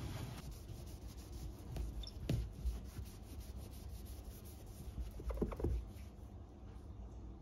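Cloth wiping and rubbing over hard appliance surfaces. There is a soft knock a little after two seconds in, and a few more bumps around five and a half seconds.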